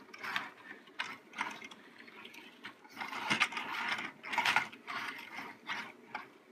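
Hard plastic toy bulldozer being handled: irregular clicks and rattles of plastic parts, busiest about halfway through.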